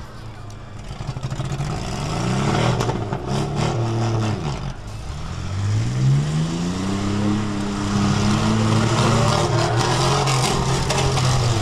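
Demolition-derby minivan engines revving, the pitch climbing and dropping several times and held high through the second half.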